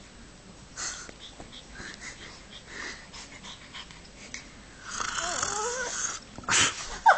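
Pug puppy breathing with soft, wheezy snuffles, then yawning about five seconds in with a squeaky, wavering whine that lasts about a second. Two short, sharp snorts follow near the end.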